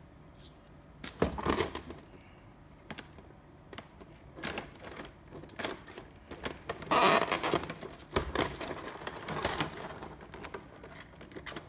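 Clear plastic blister tray and plastic bag crinkling and clicking as they are handled, in irregular bursts, the loudest about seven seconds in.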